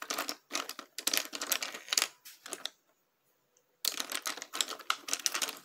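Makeup brushes clicking and clattering against one another as someone rummages through them looking for a small brush. Two spells of rapid clicking with a pause of about a second in the middle.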